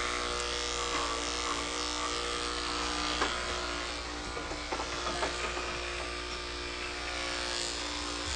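Corded electric pet clipper with a number 10 blade running with a steady hum as it clips the hair on a dog's head, with a few light clicks around the middle.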